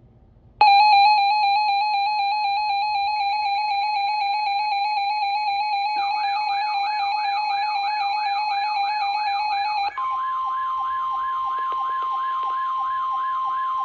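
Emergency Alert System attention signal: a loud, steady two-tone alarm starts about half a second in. From about six seconds a fast siren rises and falls over it, about three sweeps a second. About ten seconds in, the two-tone alarm gives way to a single steady, slightly higher tone, the weather radio warning alarm tone, while the siren goes on.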